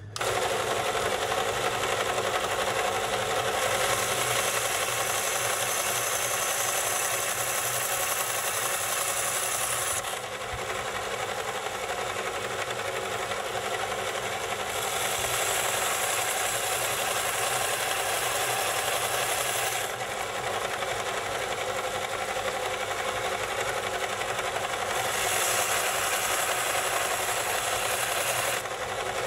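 Inland DB-100 diamond band saw running steadily, a motor hum with several steady tones. Its blade cuts through a dead acropora coral skeleton in three spells, each adding a harsh, high grinding hiss over the motor.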